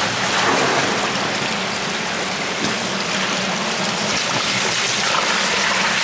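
Steady rush of water flowing along a steel storm-drain pipe.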